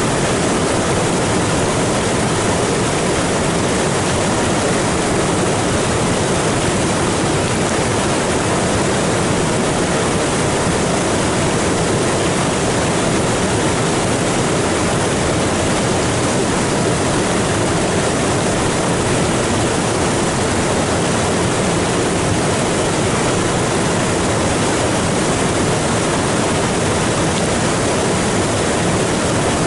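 Floodwater rushing across flat rock and pouring over a ledge in a small waterfall, the creek swollen and muddy after heavy rain. A loud, steady rush of water that never lets up.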